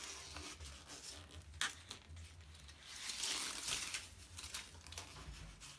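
Road bike bar tape being pulled tight and wound around a drop handlebar, rustling and crinkling, with a sharp click about a second and a half in.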